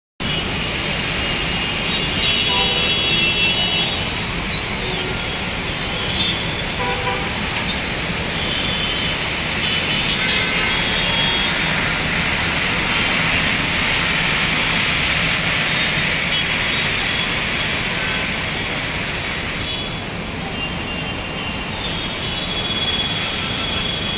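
Dense, slow-moving city traffic in a jam: a steady hiss of engines and tyres on wet road, with vehicle horns honking on and off, several at once about two seconds in and again near the end.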